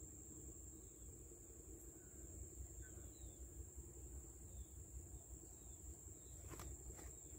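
Faint outdoor ambience: a steady high-pitched insect whine, with a few faint short chirps and a couple of light clicks near the end.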